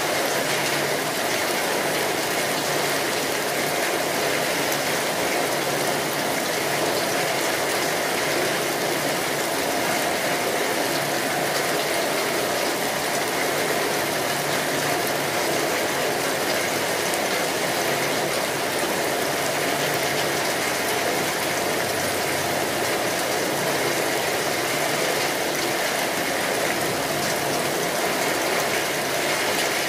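Steady rain falling, an even dense patter that holds one level throughout.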